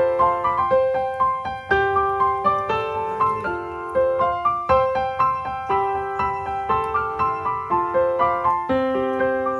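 Background music: a piano melody, notes struck several times a second.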